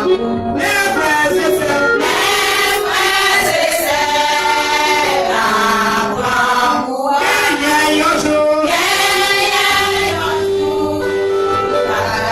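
Church choir singing a hymn in long held phrases, with a short break between phrases about seven seconds in.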